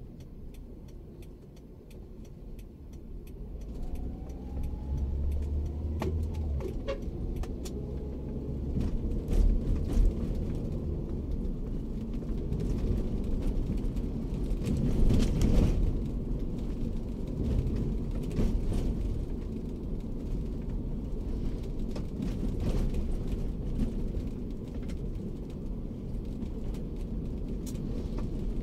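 Daihatsu Terios driving, heard from inside the cabin: a steady rumble of engine and tyres on the road, with scattered light knocks and louder bumps about ten seconds in and again around fifteen seconds.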